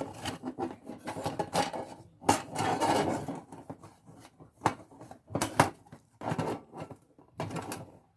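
Sterno folding stove being put together by hand: the thin metal panels scrape and rattle, and the wire base clicks into its locking tabs, in a string of sharp clicks with a longer rattle about two to three seconds in.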